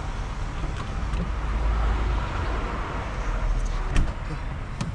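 Steady low rumble of motor-vehicle noise, with one sharp click about four seconds in.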